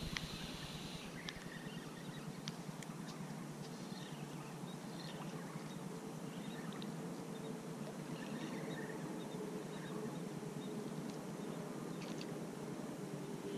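Shoreline ambience: an even hiss of wind and lapping water, with faint scattered bird chirps and a few small clicks. A faint steady hum comes in about six seconds in, like a distant boat motor.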